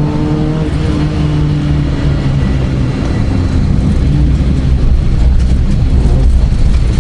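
Vauxhall Astra rally car engine heard from inside the cabin, pulling at fairly steady revs, with the pitch easing slightly in the first couple of seconds. Road and tyre noise grows louder in the second half.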